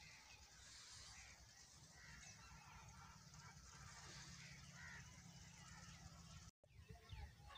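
Faint bird calls, a few short chirps scattered through, over a quiet steady outdoor hiss and low rumble. The sound drops out briefly near the end.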